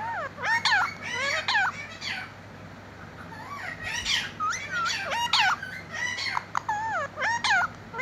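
Rose-ringed parakeet (Indian ringneck) chattering in quick, warbling notes that glide up and down in pitch, in two bursts with a short pause a little after two seconds in.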